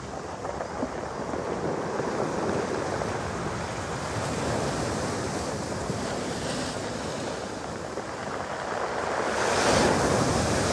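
Storm surf breaking and washing on a beach of large pebbles, a continuous rush with a louder wave surge about nine seconds in. Wind buffets the microphone.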